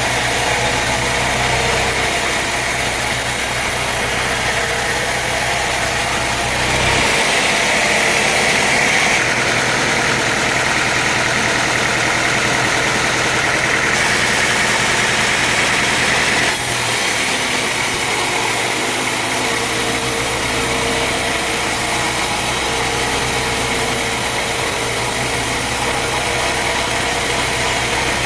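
Woodworking machinery running steadily. For about ten seconds in the middle the sound turns harsher and higher-pitched, then settles back to the steady run.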